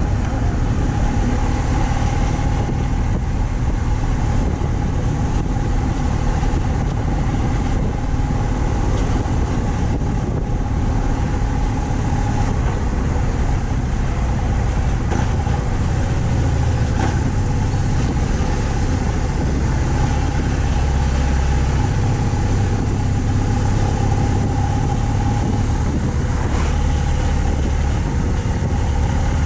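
BMW R 1200 C motorcycle's boxer twin engine running steadily at an easy cruise, with an even engine hum throughout.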